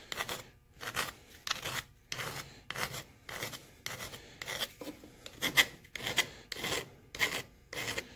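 Hand file rasping along the edge of a hand-held sheet-metal blank in a steady rhythm of about two strokes a second, truing up the curved edge and working it around the corner.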